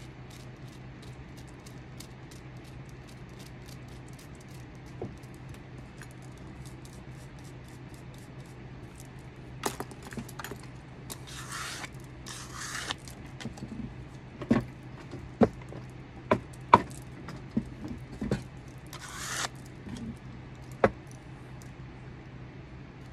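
A wooden walking stick handled and worked at a bench, with faint ticks and scratches. About ten seconds in come two short scrapes and a string of sharp knocks and clinks of the stick and metal rings and bracelets against the wood and bench, with another scrape near the end.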